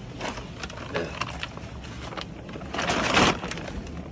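Rockfish being handled and dropped into a plastic rice sack: crinkling rustles of the sack and light knocks, with a louder rustle about three seconds in.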